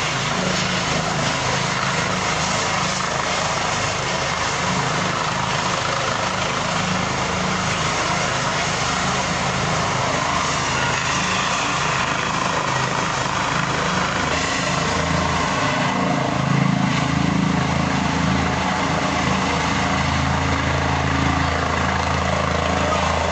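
Air ambulance helicopter running on the ground, its engine and rotor making a steady noise with a low hum. The low rotor sound grows stronger and louder in the last several seconds as the helicopter powers up and lifts off.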